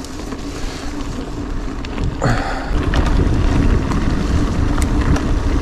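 Wind buffeting the microphone over the rolling noise of mountain bike tyres on a dirt forest track: a steady low rumble, with a short hiss about two seconds in.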